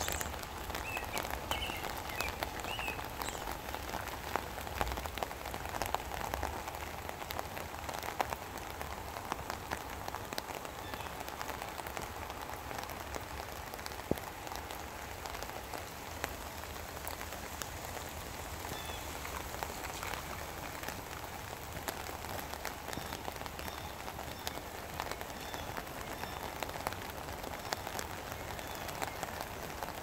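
Steady rain falling, with many individual drops tapping close by.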